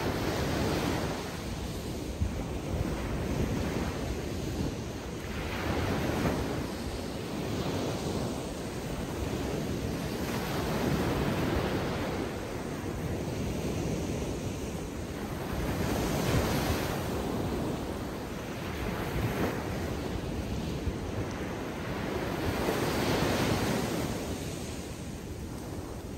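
Atlantic Ocean surf breaking on a beach, waves rushing in and washing back in swells every few seconds, with wind buffeting the microphone.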